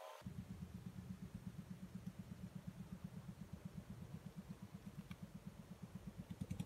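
Faint, low, even putter of a small engine running, about five beats a second.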